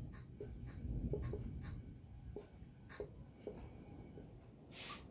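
Marker pen writing small numbers on a whiteboard: a string of short, faint taps and scratchy strokes, one digit after another.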